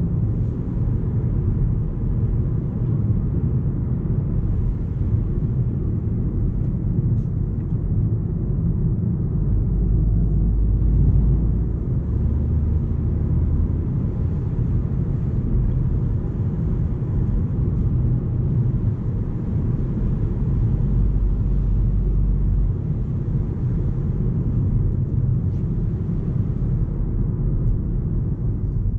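Inside the cabin of a 2018 BMW 218i Active Tourer cruising on the road: its 1.5-litre three-cylinder turbo petrol engine and tyre noise make a steady low drone.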